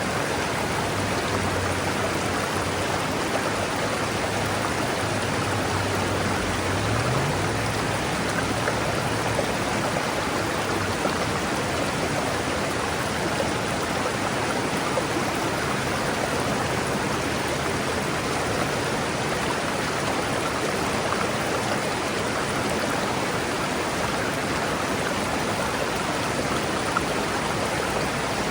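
River water flowing and rushing steadily. A faint low hum sits under it for the first ten seconds or so, rising briefly in pitch about seven seconds in.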